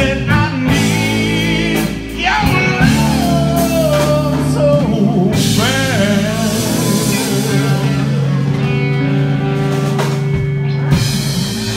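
Live blues band playing a slow blues on electric guitars, bass and drums, with a lead line bending in pitch over held chords.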